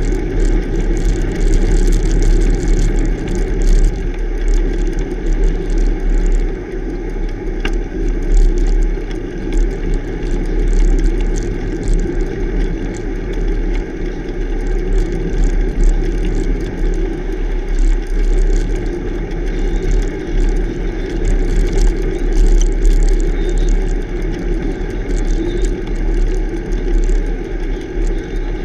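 Steady wind and road rumble on a camera mounted on a moving bicycle, with the tyres running over a rough asphalt shoulder.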